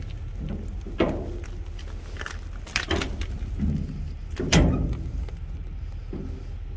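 Footsteps on wet pavement, with a few sharp knocks at irregular intervals, the loudest about four and a half seconds in, over a steady low rumble.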